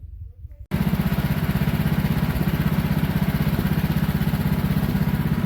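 Woodland Mills HM126 sawmill's gas engine running steadily at speed with a fast, even pulse, starting abruptly under a second in.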